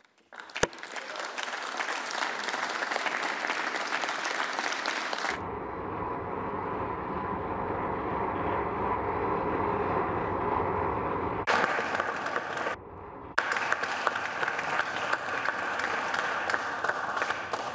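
A chamber full of senators applauding, steady dense clapping, with one sharp knock about half a second in. The applause cuts off and resumes abruptly twice around twelve to thirteen seconds in.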